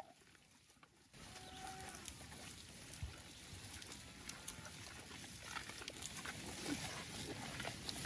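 Dairy cows eating turnips at close range, crunching and chewing the roots and tearing the leaves, with rustling of the crop foliage; it starts about a second in and goes on faintly, with scattered crisp crunches.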